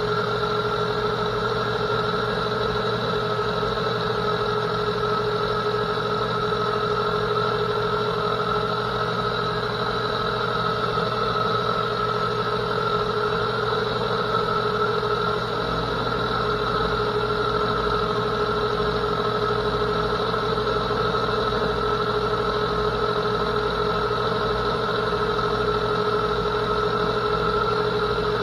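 Vintage metal lathe running steadily under power feed while a TNMG carbide insert takes a turning pass along the bar. The gearing gives a constant hum with several steady tones.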